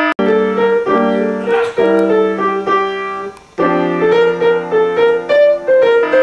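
Piano music: a melody of single notes over held low notes, breaking off briefly just after three seconds before the melody resumes.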